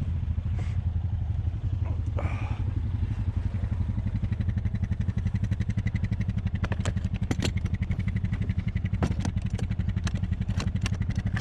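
ATV engine idling steadily, with a fast low pulse, and a series of sharp clicks or knocks in the second half.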